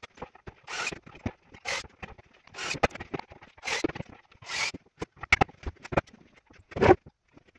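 Workshop handling of a plywood sheet on a workbench: short scraping swishes about once a second, scattered knocks and clicks, and a heavy thump near the end.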